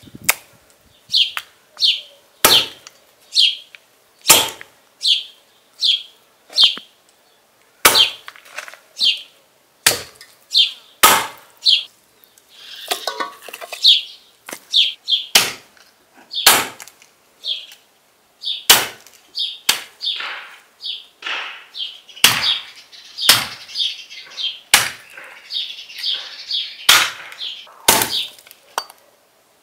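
A meat cleaver chopping bone-in lamb on a wooden stump chopping block: a run of sharp, irregular chops about one a second, many followed by a short ring.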